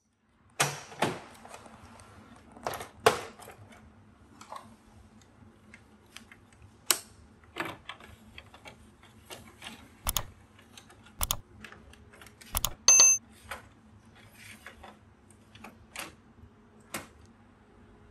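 Scattered clicks, taps and knocks, like hard plastic parts being handled and fitted, with a short electronic beep about thirteen seconds in, over a faint low hum.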